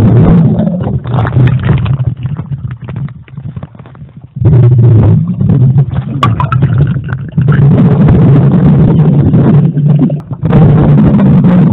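Loud, distorted water noise, splashing and churning underwater, picked up by a camera sealed in a plastic bag, with a quieter lull a few seconds in.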